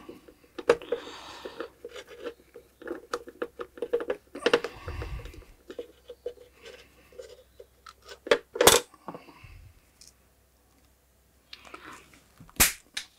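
Small clicks, taps and scrapes of a screwdriver and screws working on a Weller desoldering handpiece as it is screwed back together. There are a few sharper knocks, the loudest a little past halfway, and a dull bump about five seconds in.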